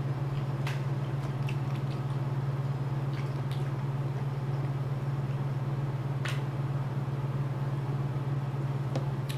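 Soft eating and drinking sounds, a few faint clicks and sips from a drink can, over a steady low hum.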